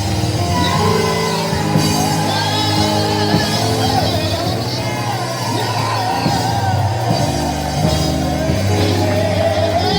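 Live gospel music in church, with voices singing and shouting over the band.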